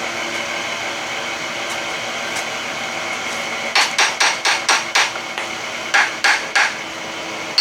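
Hammer tapping on an outboard's electric starter motor, about six quick metallic raps followed by three more, after a steady whir. This is the old trick for freeing sticking starter brushes on a starter that won't crank properly.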